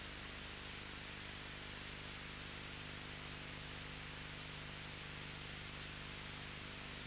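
Steady hiss with a constant low hum and no other sound. This is the noise floor of a VHS transfer during a silent film.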